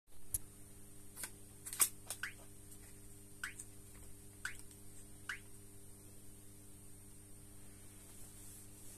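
Fingertip taps on the touchscreen of a bus automatic announcer unit: a handful of short sharp clicks over the first five seconds or so, over a steady electrical hum.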